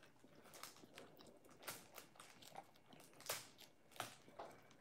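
Faint crunching of toast being bitten and chewed, heard as a few short, scattered crunches.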